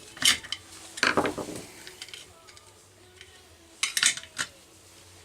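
Small metal chain-brake parts and hand tools clinking and clattering as they are handled: two sharp clicks in the first second or so and a quick cluster of clicks about four seconds in.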